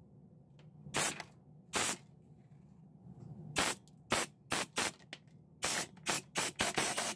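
Compressed air blown from a handheld air blow gun in about a dozen short hissing blasts, spaced out at first and coming in quick succession toward the end.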